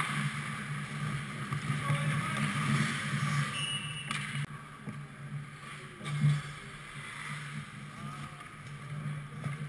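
Ice hockey rink ambience: a steady low hum with a hiss of skates and play on the ice and faint distant voices. A short high whistle sounds about four seconds in, and a single knock comes near six seconds.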